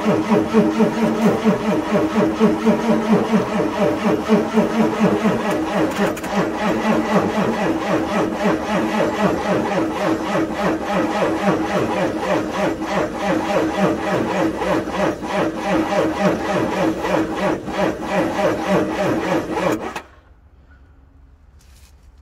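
Ford 7.3L IDI diesel V8 cranking on its starter without catching: a steady, rhythmic chugging of compression strokes that cuts off suddenly about 20 seconds in. The truck won't start, the hard starting this engine is known for after sitting.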